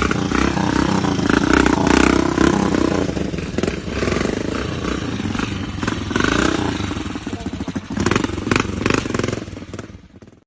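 VR150 motorcycle engine revving and pulling hard up a hill, its pitch rising and falling with the throttle, with some clatter. It fades out and cuts off near the end.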